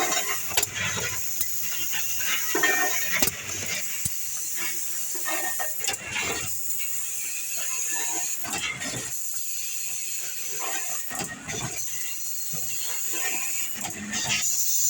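Dishwasher-tablet packing machine running, with a steady air hiss and irregular mechanical clacks and knocks.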